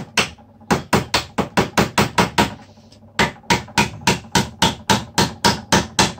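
Small hammer driving a panel pin into the back panel of a wooden cabinet: quick, light, evenly spaced taps, about five a second, in two runs with a short pause about halfway.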